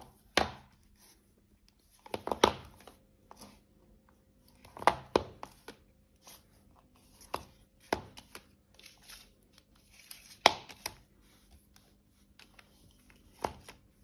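Smartphones being flipped over and set down on a hard surface by hand: a string of sharp clacks and knocks, some in quick pairs, with light handling and sliding noise between them.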